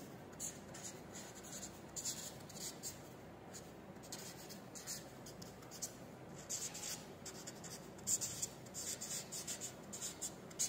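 Marker pen scratching across paper in short, irregular strokes as words are handwritten.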